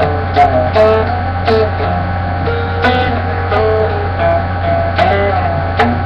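Guitar played with plucked strings, picking out a changing line of notes with a few light strums, over a steady low hum.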